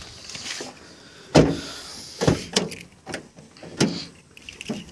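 A car door being shut with one heavy thump about a second and a half in, followed by several lighter knocks and clicks.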